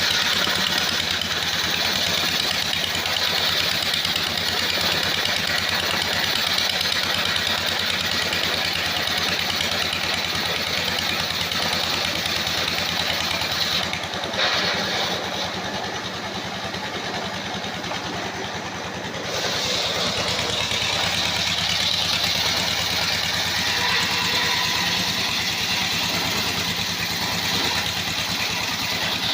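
Engine-driven circular sawmill running steadily: a low engine hum under a higher hiss from the saw. The hiss drops away for about five seconds midway, then comes back.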